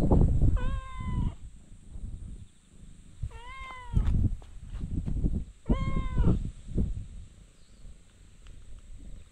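A stray cat meows three times, each a short call of about half a second that rises and then dips slightly, spaced a few seconds apart. Low thumps and rumble sit between the calls, heaviest at the start.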